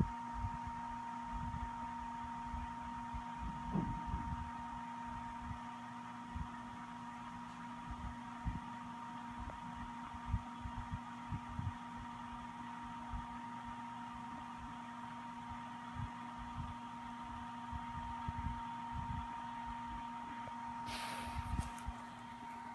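Small electric air pump of a Nora anti-snoring device running steadily with a hum, slowly inflating the insert under the pillow. There are scattered soft low knocks, and a brief hiss about two seconds before the end.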